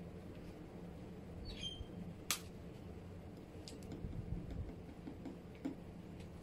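Quiet handling as baking soda is put into the crater of a model volcano: a few small clicks and ticks, the sharpest about two seconds in, over a low steady background hum.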